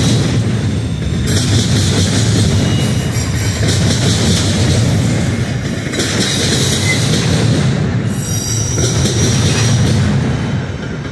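Double-stack intermodal well cars rolling past close by: a steady rumble of steel wheels on rail, with a brief faint high wheel squeal near the end.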